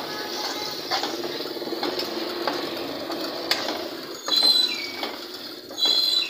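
Minced garlic sizzling in oil in a wok while a metal spatula stirs and scrapes it around the pan, in short strokes. Two louder, squeaky scrapes of the spatula on the pan come about four and six seconds in.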